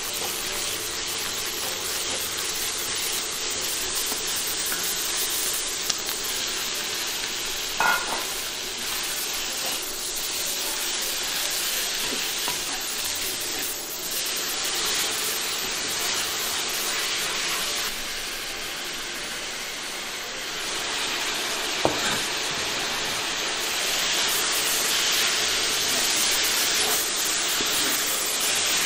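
Garlic sprouts and fried tofu sizzling in a hot wok as a wooden spatula stirs and tosses them, a steady frying hiss throughout. Two sharp knocks stand out, one about a third of the way in and one about three-quarters through.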